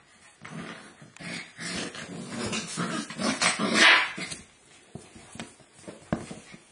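Bearded Collie puppies play-fighting, growling and yapping in a run of short irregular sounds that is loudest about four seconds in, then dies away to a few claw taps on the wooden floor.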